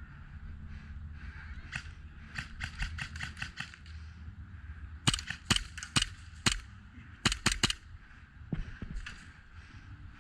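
Airsoft guns firing BBs: a fainter quick string of shots about two to four seconds in, then louder single shots spaced about half a second apart.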